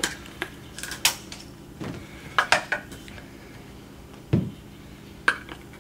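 Plastic Polaris 380 pool-cleaner wheel parts clicking and clattering as they are handled and pried apart with a screwdriver, with a duller knock a little past four seconds in.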